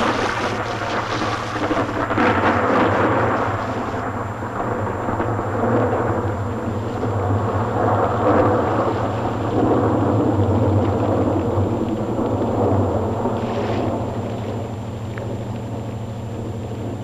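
Thunder rumbling in several long rolls that swell and fade, over a steady low hum.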